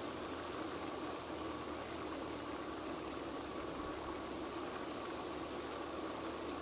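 Steady background hiss with a constant low hum underneath, no distinct events.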